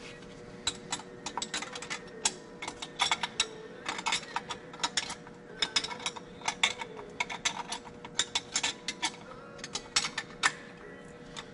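Runs of quick, sharp metal clicks with short pauses between them, as a hand wrench works the nuts holding a turbocharger to the exhaust manifold.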